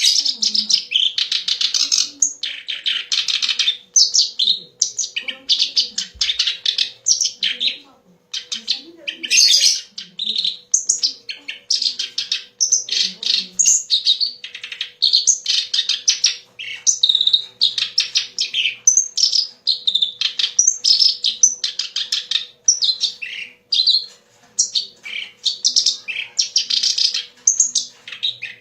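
Kerak basi (a reed warbler) singing a long, loud, continuous chattering song of rapid harsh and varied notes, with brief pauses between phrases. A faint steady hum lies underneath.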